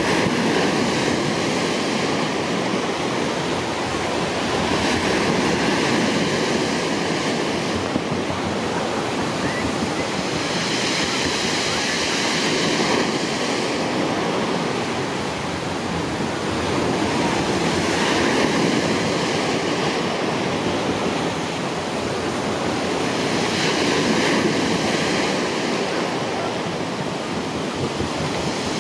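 Rushing of water and wind on the microphone, swelling and easing every five or six seconds.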